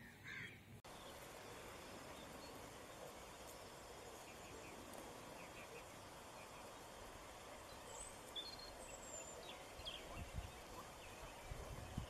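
Faint outdoor ambience: a steady hiss with scattered, faint bird chirps, and a few low bumps near the end.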